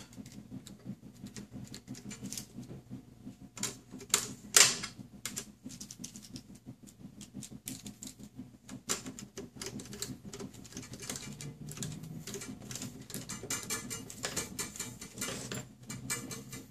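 A small hand screwdriver and plastic model truck parts being worked together: irregular light clicks and taps, with two louder knocks about four seconds in, then a busier stretch of scratchy clicking as screws are driven into the plastic bumper.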